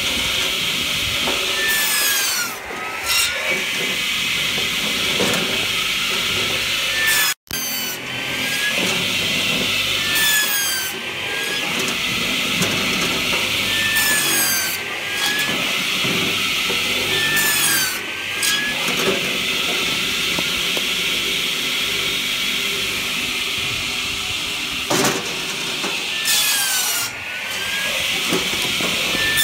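Hartnett 500 mm electric log saw bench, its circular blade running and cutting through firewood logs one after another. It makes a steady whine and hiss, and the pitch dips as each cut loads the blade, then comes back up, several times over.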